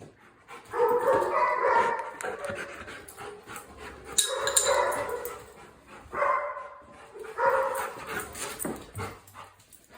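A dog giving about four drawn-out, whining barks, each lasting around a second.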